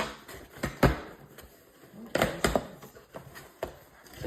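A package being handled and opened: a series of irregular knocks, clicks and scrapes, several of them sharp and loud.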